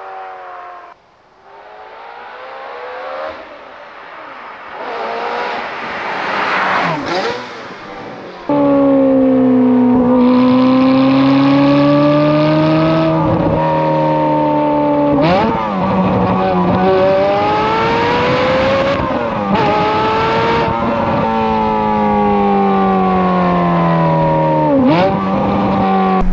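Ferrari F430's V8 running through an FI aftermarket exhaust. First the car drives past, its pitch rising and then falling as it goes by about seven seconds in. Then, heard close to the tailpipes, the engine runs loud and steady, its pitch rising slowly and dropping sharply at two gear changes; between them it falls away for a few seconds as the revs come down.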